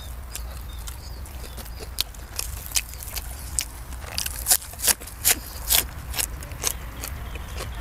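Close-up chewing and mouth smacking while eating sausage: irregular wet clicks, thickest about four to six seconds in, over a low steady rumble.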